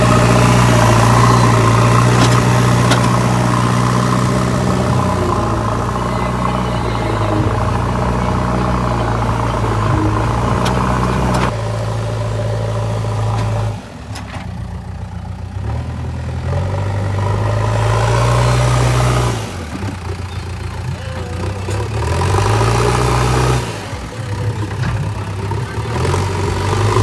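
JCB backhoe loader's diesel engine running steadily under load, then revving up and dropping back to a lower speed several times, with sharp drops about 14, 19 and 24 seconds in.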